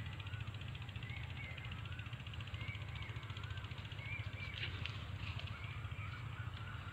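Birds calling in many short, wavering notes over a steady low rumble.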